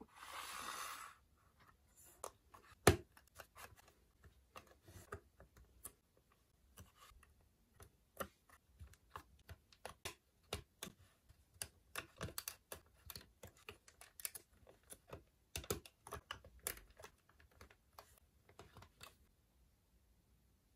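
Lego bricks clicking against each other and onto a plastic baseplate as they are fitted and handled: an irregular run of small plastic clicks and snaps, with one louder snap about three seconds in. A short burst of noise comes before the clicking, and the clicks thin out near the end.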